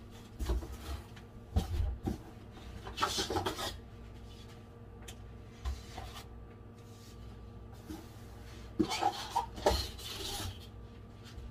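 Cardboard box and egg trays being handled: rustling and scraping as trays of eggs are lifted out of the box and set on a counter, in a few short bouts with quieter gaps between.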